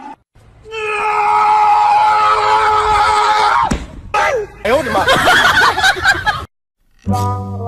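A loud shrieking cry held for about three seconds and dropping away at the end. After a short break come wavering cries that rise and fall. Near the end the cries give way to music.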